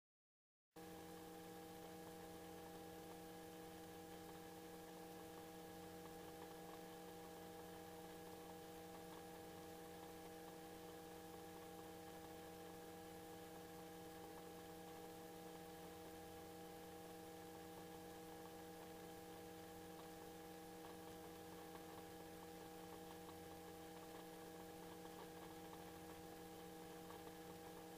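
Near silence: a faint, steady electrical hum of several held tones over light hiss, which cuts in suddenly about a second in after dead silence and does not change.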